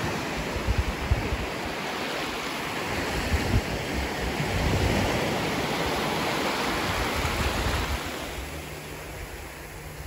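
Small sea waves washing up on a sandy beach, with wind buffeting the microphone. It grows quieter near the end.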